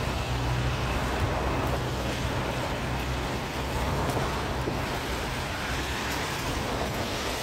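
City street traffic noise: a steady hiss with a low engine hum underneath that weakens after about three seconds.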